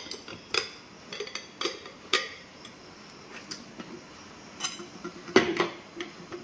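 Aluminium cake tin and glass serving plate knocking and clinking together in a series of separate sharp knocks as the tin is turned upside down onto the plate to unmould a steamed pudding, with a louder cluster of knocks near the end.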